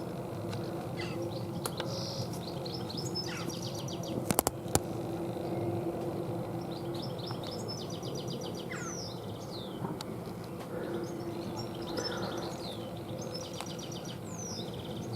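Small songbirds chirping and singing rapid trills, over a steady low hum that drops away and comes back. A few sharp clicks about four seconds in.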